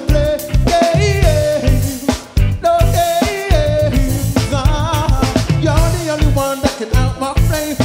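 Live reggae band playing a dancehall number: male lead vocal sung into a microphone over bass guitar, drum kit and keyboard, with a steady repeated bass-and-drum beat.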